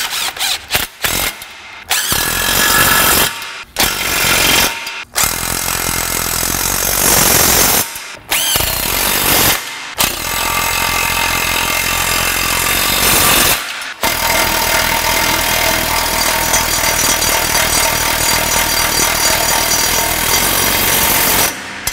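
DeWalt cordless impact gun hammering, in a series of long bursts with brief pauses between them. It is running down the nuts and bolts that clamp the new catalytic converter's flanges to the exhaust pipe.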